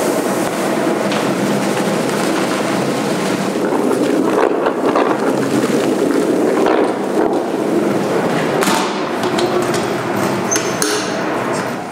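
Electric stirrer running in a stainless steel calf-milk mixing tank, churning milk replacer into a vortex with a steady whirring, sloshing noise. Several knocks sound over it, the last cluster near the end.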